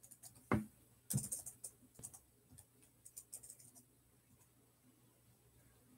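A soft thump, then a quick run of faint light clicks and taps that thins out after a few seconds.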